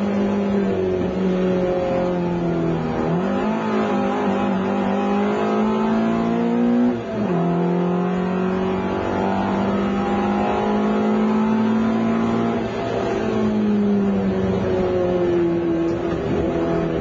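Competition car's engine heard from inside the cabin, driven hard. Its pitch climbs, then drops sharply with a gear change about seven seconds in. It drops again about twelve and a half seconds in and falls away over the last few seconds as the car slows.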